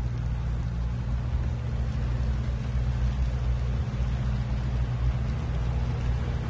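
Yamaha WaveRunner jet ski's engine running steadily at low speed, a continuous low drone.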